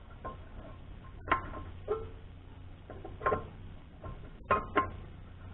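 A handful of sharp metallic clinks with brief ringing, two close together near the end: steel parts knocking together as a part is worked onto a freshly shortened bolt. A steady low hum runs underneath.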